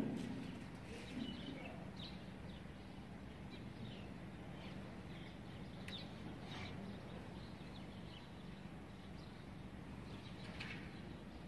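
Small birds chirping faintly here and there over a steady low background hum, with a short knock at the very start.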